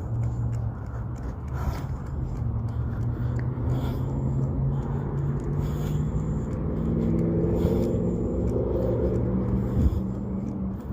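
An engine runs nearby with a steady low hum that swells and then eases off. A single sharp knock comes near the end.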